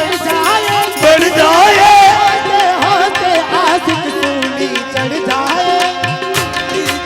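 Instrumental interlude of Gujarati devotional folk music: a wavering, ornamented melody line with vibrato over a steady beat of hand drums.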